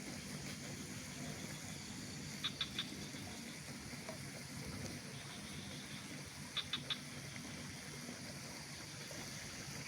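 Mountain outdoor ambience: a steady low background hum and hiss, with a small animal's call of three quick high chirps heard twice, about four seconds apart.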